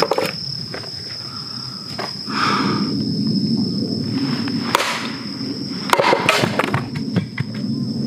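A hatchet chops into and splits a firewood log on a chopping stump, giving a few sharp knocks in the second half. A steady high insect trill runs underneath.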